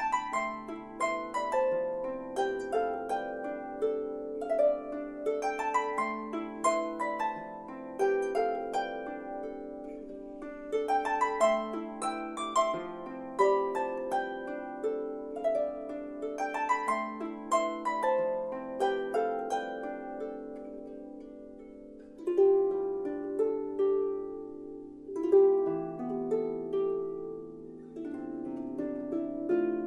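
Solo harp, a small lever harp plucked by hand: repeating upward arpeggio runs of ringing notes over held lower notes. About two-thirds of the way through the playing changes to slower, fuller plucked chords with a few louder strikes.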